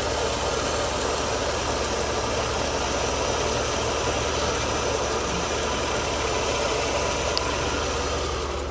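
Mercedes-Benz W124 300E straight-six idling steadily, heard close up in the engine bay, its fuel mixture just adjusted to about a 50% duty cycle after running rich.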